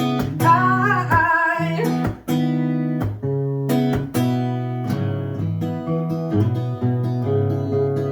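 Acoustic guitar strumming chords in a steady rhythm, with a short, wavering sung note in the first two seconds.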